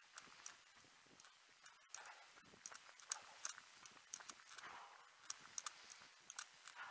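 A runner's footfalls, heard as faint, uneven clicks and taps.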